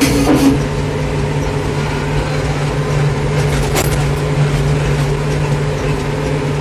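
Farmtrac 675DTN tractor's diesel engine running at a steady speed as the tractor drives along, heard from inside the cab as a steady drone.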